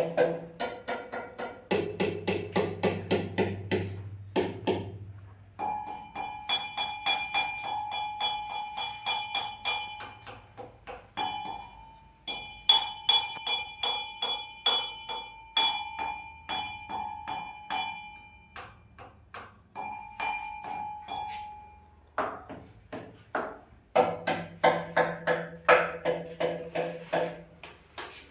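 Rapid tapping on hard objects that ring with a clear pitch, about five taps a second. It comes in stretches of a few seconds, each at a different pitch, with short pauses between them.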